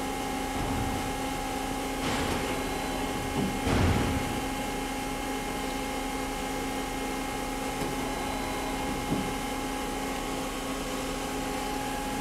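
Star SV-32J CNC Swiss-type lathe running with a steady hum while its 8-position tool turret indexes, giving short mechanical noises about two seconds in and again near four seconds.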